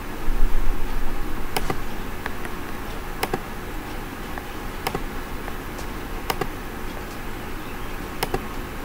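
A few sharp computer mouse clicks, spaced a second or two apart, over a steady low hum and hiss.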